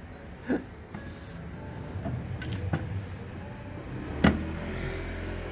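Workshop handling noises: a few sharp clicks and knocks of tools or metal parts, the loudest about four seconds in, over a low steady hum that swells from about two seconds in.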